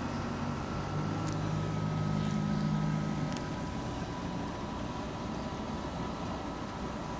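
Steady outdoor noise with a low motor hum that stops abruptly a little over three seconds in. After that only a steady hiss with a faint high whine is left.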